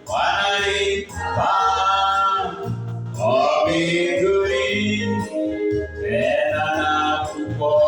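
Voices singing a Swahili gospel hymn in slow phrases of about two to three seconds, over steady low bass notes from an accompanying instrument.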